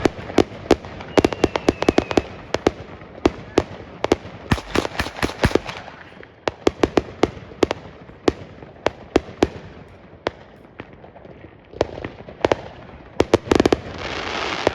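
Fireworks and firecrackers going off all around: many sharp bangs at irregular spacing, some in quick clusters, with a dense run of rapid crackling pops near the end.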